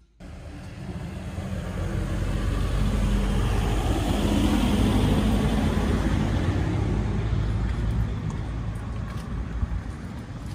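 A motor vehicle drives past on the street, its engine and tyre noise growing louder to a peak about five seconds in and then fading away.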